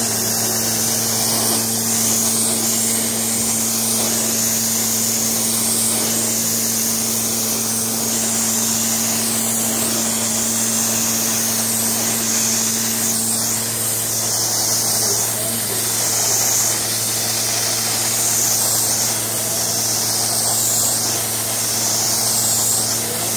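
Carpet-cleaning extraction upholstery tool drawn over carpet: a steady vacuum suction hiss over a motor hum. The hiss swells and fades with each stroke of the tool, about every second and a half in the second half.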